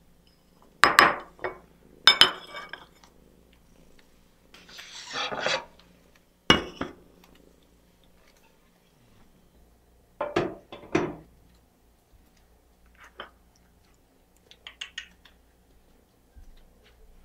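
Ceramic dishes set down on a stone countertop: a series of sharp clinks and knocks a few seconds apart, with fainter taps near the end.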